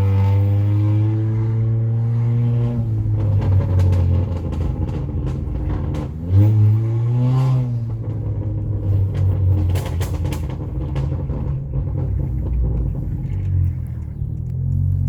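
Honda Accord Sport's 1.5-litre turbo four-cylinder running through a PRL front pipe and downpipe with the muffler and resonator deleted. Its note sinks slowly over the first few seconds, then one rev blip about six seconds in rises and falls back, with scattered sharp clicks around it.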